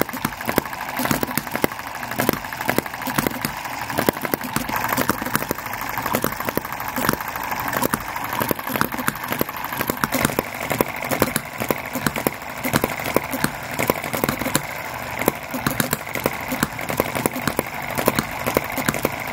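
Two small petrol model hit-and-miss engines running together: a dense, irregular patter of sharp firing pops and mechanical clicks.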